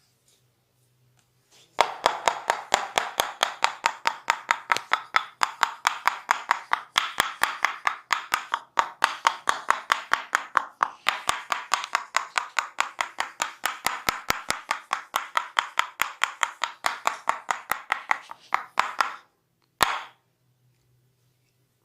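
Massage percussion (tapotement): hands striking the body in a rapid, even clapping rhythm of about six strikes a second. The strikes start about two seconds in, stop abruptly near the end, and come back in one short burst a moment later.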